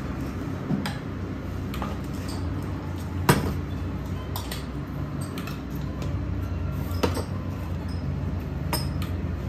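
Clinks and knocks of cups and metal coffee gear being handled on a stainless-steel counter, with a sharper knock about three seconds in and another about seven seconds in, over a low steady hum.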